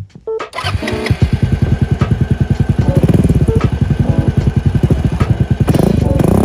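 Honda Fusion 250 scooter's single-cylinder four-stroke engine running through a twin-pipe exhaust. It comes in about half a second in, runs at a steady, evenly pulsing idle, and is given a brief rev that rises and falls near the end.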